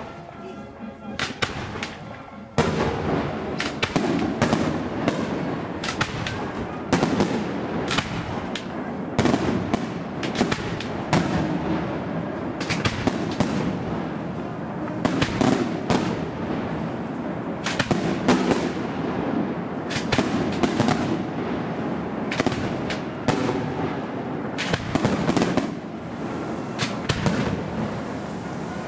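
Fireworks display: a dense barrage of bursting shells and firecrackers, with many sharp bangs in quick succession over a continuous din of explosions. The barrage starts in earnest about two and a half seconds in.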